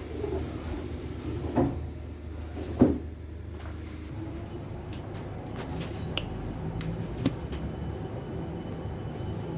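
Railway station ambience: a steady low rumble with a few sharp knocks and clunks, the loudest about three seconds in, and lighter ticks after.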